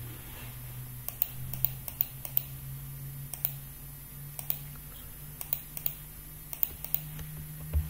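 Computer keyboard keys and mouse buttons clicking irregularly, sometimes several in quick succession, over a steady low hum.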